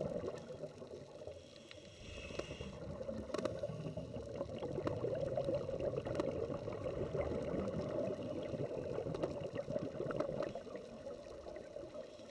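Underwater camera audio: muffled water noise with gurgling and scattered clicks, around scuba divers working over a sandy seabed.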